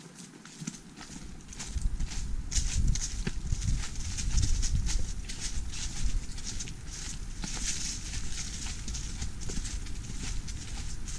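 Footsteps crunching through dry fallen leaves on a forest trail, at a steady walking pace. A low rumble joins from about two seconds in.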